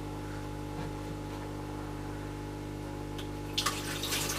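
Cookology mini countertop dishwasher starting its cycle: a steady low hum from its pump, then about three and a half seconds in a loud hiss of water rushing into the machine begins.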